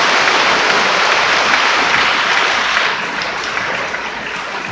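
Audience applauding, a dense steady clapping that eases off about three seconds in.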